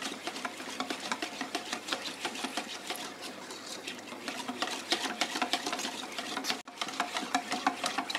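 Wire whisk beating a thick flour-and-ghee batter in a metal bowl: a fast, continuous run of ticks as the wires hit the bowl, with a brief pause about two-thirds of the way through.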